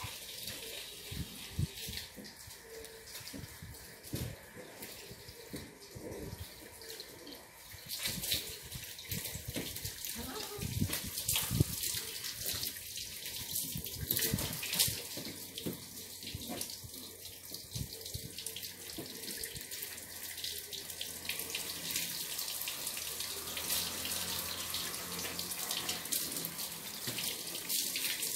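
Water from a garden hose spraying and spattering onto a car's body during a wash, heavier from about eight seconds in.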